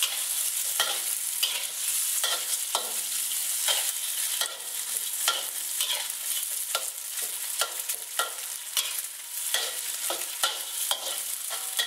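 Garlic, five-spice tofu and Chinese sausage sizzling in hot oil in a wok, with a metal spatula repeatedly scraping and clacking against the wok as the food is stir-fried, about once or twice a second.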